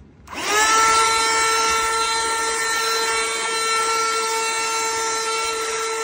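KADONIO cordless stick vacuum switched on: its motor spins up with a rising whine over the first second, then runs at a steady high whine.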